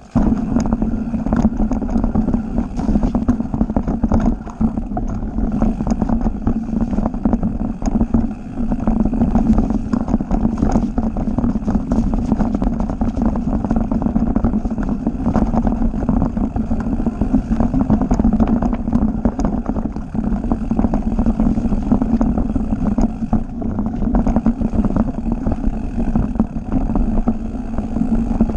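Mountain bike riding fast over a rooty, rocky forest trail, heard from a camera mounted on the bike: a steady rush of wind and tyre rumble with frequent small knocks and rattles from the bike.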